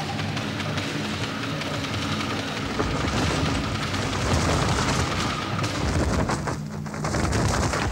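Action-scene sound effects: a heavy rumbling boom with rapid crackling that swells about three seconds in, over low sustained music notes at first.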